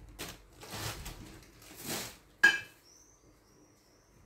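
Soft rustling kitchen handling sounds, then about two and a half seconds in a single sharp metallic clink that rings briefly: a utensil knocking against the metal cooking pot.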